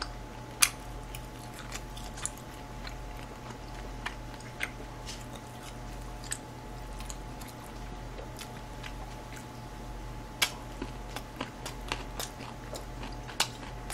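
A person chewing and eating chop steak close to the microphone, with scattered small sharp clicks of mouth and chopsticks, more frequent near the end, over a steady low hum.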